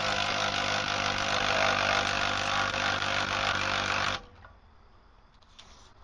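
A power tool running steadily at full speed, with a dense rattling buzz, cutting off sharply about four seconds in.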